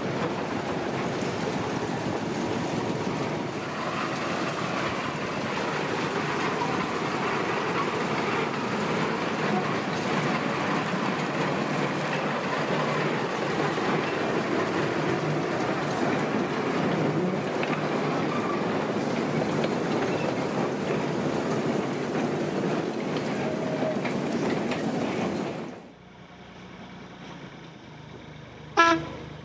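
Narrow-gauge train running on the line, a steady clatter of wheels and wagons on rail that stops abruptly after about 26 s. Then a small diesel locomotive's engine runs quietly as it approaches and gives one short horn toot near the end.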